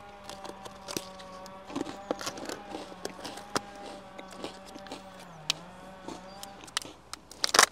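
Plastic ration-pack pouches being handled, giving scattered clicks and rustles. Under them runs a steady hum that dips in pitch about five and a half seconds in and stops near the end.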